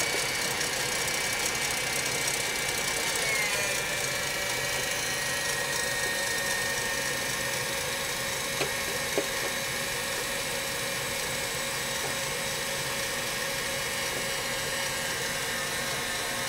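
KitchenAid Commercial stand mixer running at speed, its wire whisk beating egg whites as sugar is gradually added: a steady motor hum with a high whine that drops slightly in pitch a few seconds in. Two light clicks about halfway through.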